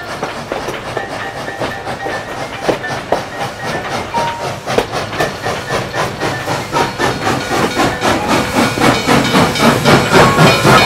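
Steam-locomotive sound: rhythmic chuffing with hissing, which grows louder and quicker toward the end. It is a soundtrack effect, not the sound of the tiny model train itself.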